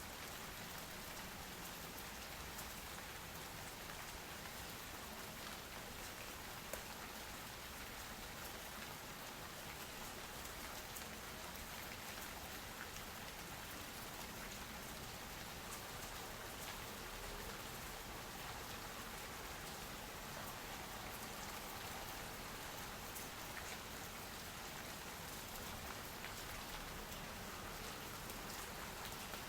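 Steady, even rain falling on hard surfaces, with scattered faint drop ticks and one small click about seven seconds in.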